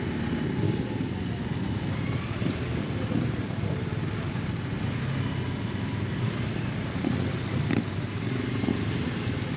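Motorcycle riding on the road, its engine running steadily.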